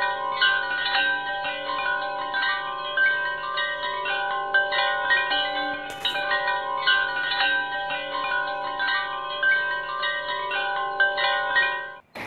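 Wind chimes ringing as background music: many metal tones struck in quick, irregular overlap. The sound stops abruptly just before the end.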